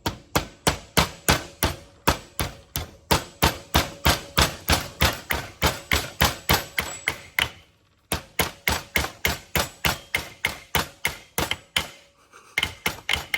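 Hammer tapping the cross-pin retainer into a Dana 30 differential carrier: quick, even strikes about four a second, with a short pause about eight seconds in before the tapping resumes.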